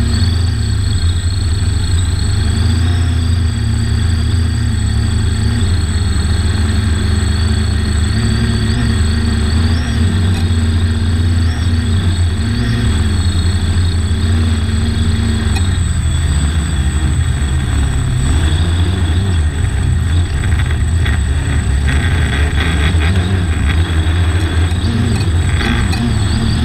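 Quadcopter drone's electric motors and propellers humming steadily, as picked up by its onboard camera, over a heavy low rumble; the thin whine wavers up and down in pitch as the drone manoeuvres.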